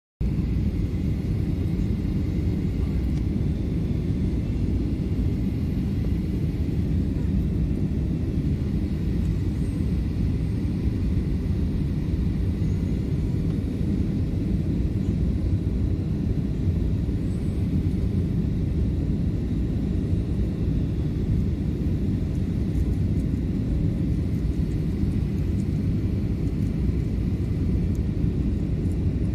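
Steady cabin noise inside a Boeing 737-500 airliner on approach, heard from a window seat over the wing. It is a dense low rumble of airflow and its CFM56 turbofan engines, with a faint high steady whine above it.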